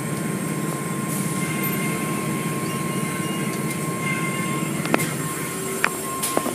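Automatic car wash tunnel machinery running: a steady mechanical rumble and spray hiss with a faint steady whine. A few sharp knocks come near the end.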